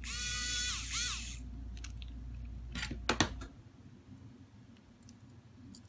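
Small electric precision screwdriver whirring for about a second and a half, its pitch dropping as the motor stops. A few sharp clicks follow about three seconds in, and a low background hum cuts off soon after.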